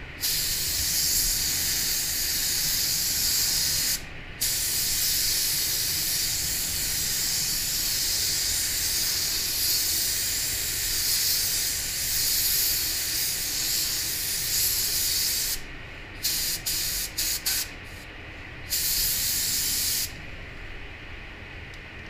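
Gravity-feed paint spray gun hissing as it sprays white basecoat, in long continuous passes with a short break about four seconds in. Near the end come several quick trigger pulls and one last longer burst, then the gun stops and only the steady air noise of the spray booth remains.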